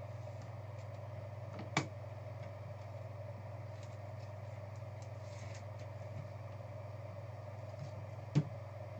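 Steady low electrical hum, with light plastic handling noise and two sharp clicks, one about two seconds in and one near the end, as a trading card is slid into a plastic sleeve and a rigid plastic top loader.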